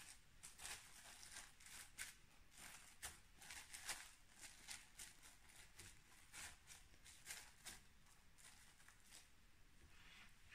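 Faint, irregular crinkling and rustling of plastic cling film as hands press it down onto soft pudding in a glass bowl and smooth it around the rim.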